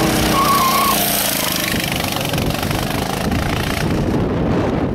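390cc go-kart engine running hard as the kart passes close by through a corner and then heads away down the track; its clear pitched note in the first second gives way to a rougher, noisier engine sound.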